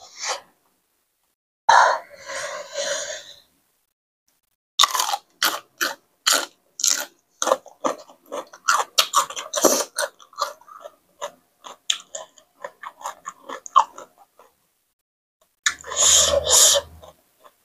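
A person chewing a mouthful of papaya salad and fresh vegetables, with a quick run of short, wet, crunchy chews from about five seconds in to about fourteen seconds, and a brief burst of noise just before the end.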